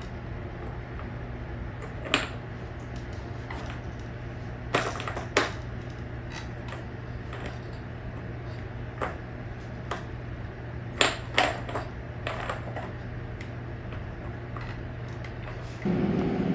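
Hard plastic toys on a baby's activity jumper clacking and knocking as the baby handles them: scattered sharp clicks, some in quick pairs, over a steady low hum.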